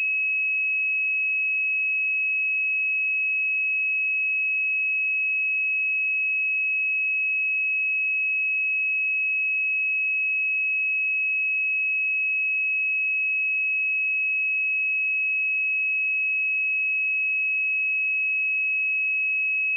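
A pure 2566 Hz sine-wave test tone, held steady at one pitch and level without a break.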